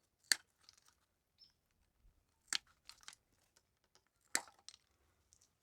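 Three sharp plastic clicks about two seconds apart, with fainter ticks and rustles between: the clips of the under-valve-cover wiring harness being worked loose by hand.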